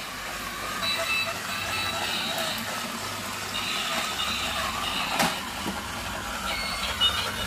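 Battery-powered toy ATV driving itself across a wooden floor: its small electric motor whirring and plastic wheels rolling, with high electronic tones from the toy that come and go.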